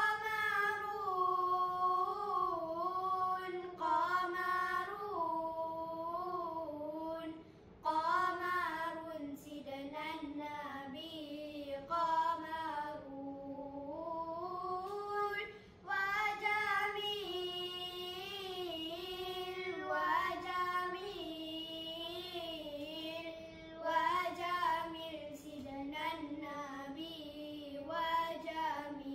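Boys singing selawat, Islamic devotional praise of the Prophet, without accompaniment: long, ornamented melodic phrases with short breaths between them.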